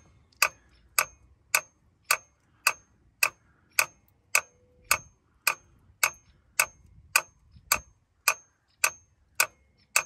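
Glow plug relay on a Ford 7.3 IDI diesel clicking over and over, just under two sharp clicks a second, each with a brief high ring. The owner takes it for a bad relay with some glow plugs burnt out.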